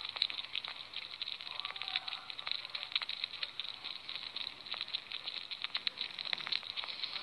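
Sugar gliders making a continuous crackling chatter of fast, irregular clicks over a soft hiss, a sound the owner presents as a happy one.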